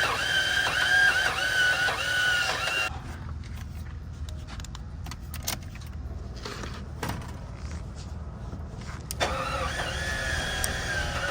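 Starter motor cranking the 1995 BMW 750iL's V12, a whine that dips in pitch with each compression stroke while the engine fails to catch. It stops about three seconds in, leaving a low rumble and a few clicks, and cranking starts again near the end.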